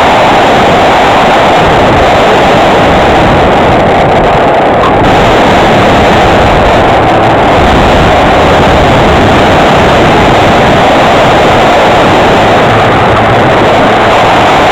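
Home-made RC plane in flight, heard from a camera mounted on its wing: a steady, loud rush of airflow mixed with the plane's motor and propeller noise.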